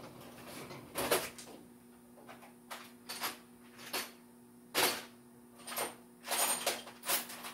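Metal shop hardware being rummaged through and handled: a string of irregular clanks and clicks as clamps and bolts are picked up and set down, over a low steady hum.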